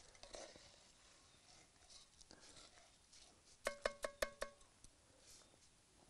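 A metal spoon tapped quickly about five times on the rim of a cooking pot, each tap ringing briefly, about four seconds in. Otherwise only faint, scattered small noises.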